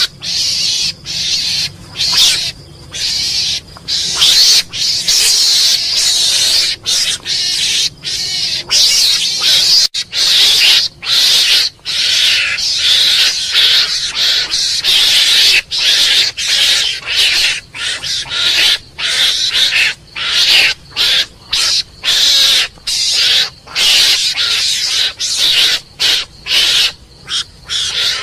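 Mongoose calling: loud, high-pitched chattering squeals in quick runs of short bursts with brief gaps between them.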